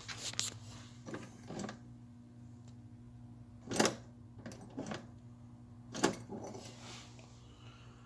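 A series of sharp clicks and rattles of handling, the loudest about four seconds in and about six seconds in, over a steady low electrical hum.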